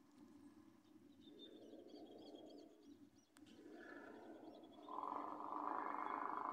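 Small birds chirping, then about five seconds in a steady, louder sound from a distant approaching diesel freight train sets in and keeps going.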